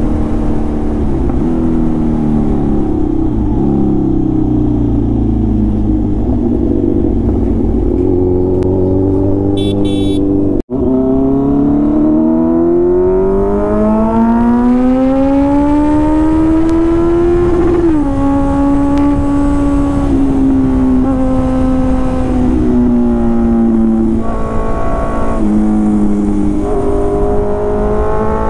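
Motorcycle engine under way, its pitch rising and falling with throttle and gear changes. There is a long climb in revs through the middle, a sudden drop at a gear change, then a steadier pitch that steps down a few times. The sound breaks off for an instant about ten seconds in.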